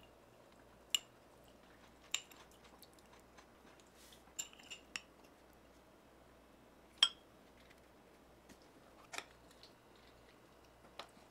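A metal fork clinking against ceramic dishes while someone eats. There are about six short, sharp clinks with a slight ring, spread irregularly a second or two apart.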